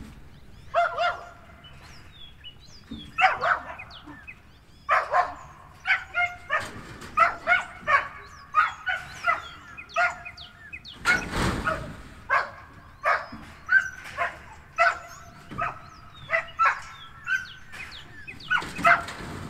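An animal giving short, sharp barking calls over and over, in runs of several notes a second with pauses between. About eleven seconds in there is a louder burst of rustling noise.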